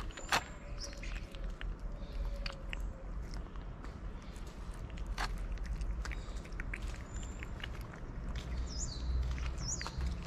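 Tabby cat chewing and eating wet cat food from a dish, a run of irregular short wet clicks and smacks. A bird chirps a few times near the end, over a steady low rumble.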